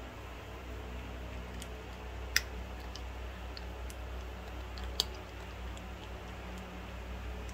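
Cat crunching dry kibble: scattered small crunchy clicks, with two sharper ones about two and a half seconds and five seconds in, over a steady low background hum.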